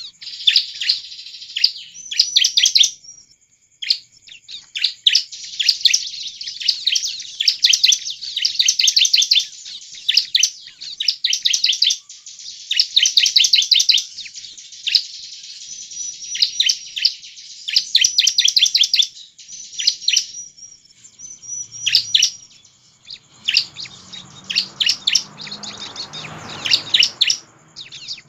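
Bar-winged prinia (ciblek) in full, energetic song: rapid strings of sharp, high chirping notes grouped into phrases of one to two seconds, repeated almost without pause.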